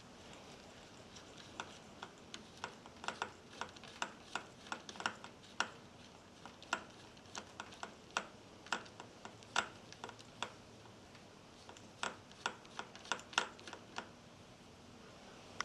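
A series of irregular, sharp small clicks and ticks, a few at a time with short gaps, from hand work on the bicycle fork's parts and tools.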